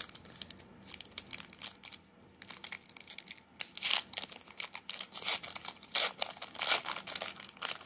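A 2020 Topps Heritage High Number baseball card pack wrapper being torn open and crinkled by hand. It crackles sharply, sparse at first and then denser and louder from about halfway through.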